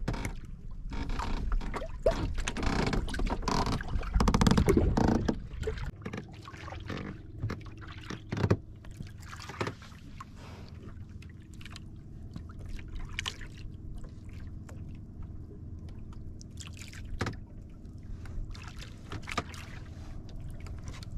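Water lapping against the hull of a small wooden outrigger boat drifting at sea, with scattered light knocks; a louder rush of noise in the first six seconds settles to a quieter wash.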